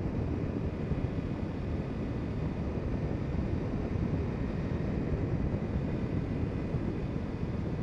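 Kawasaki Ninja 300 motorcycle cruising at a steady speed: an even, low rush of wind on the microphone mixed with engine and road noise, holding steady with no revving or gear changes.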